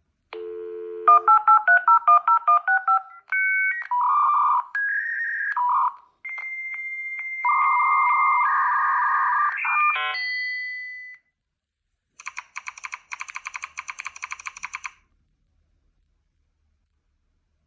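Electronic beeps and tones: a quick run of alternating pitched beeps, then held tones that jump between pitches, then about three seconds of rapid stuttering beeps before it cuts off.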